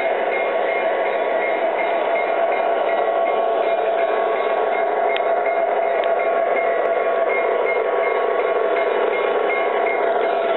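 A model diesel locomotive and its train running on a model railroad layout: a steady hum with several held tones and a light, regular tick about three times a second.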